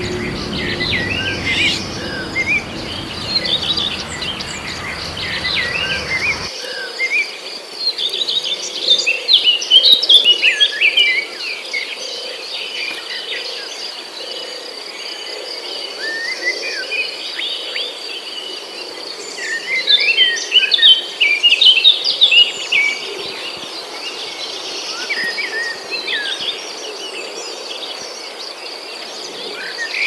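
Birds chirping and calling over a steady high insect trill, with busier bursts of song about ten seconds in and again around twenty seconds. A low hum runs underneath for the first six seconds and cuts off suddenly.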